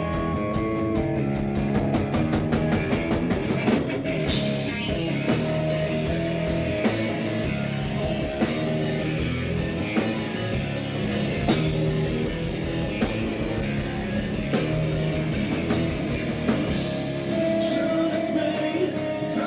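Rock band playing live and loud: distorted electric guitar, bass guitar and a steady drum beat, with the cymbals coming in about four seconds in.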